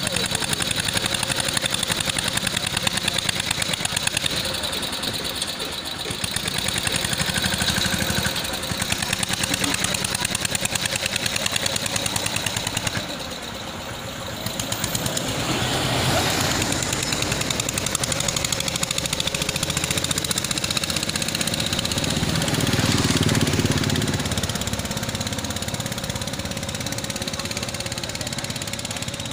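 Mahindra Yuvraj 215 tractor's single-cylinder diesel engine running with a rapid, steady knocking beat. It drops in level around the middle, then swells louder and deeper for a couple of seconds a little over twenty seconds in.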